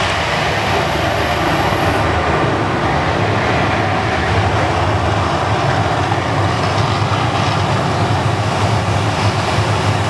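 The Mirage's artificial volcano show giving out a steady, loud rumbling roar as its eruption dies down. A faint high hiss stops about two seconds in.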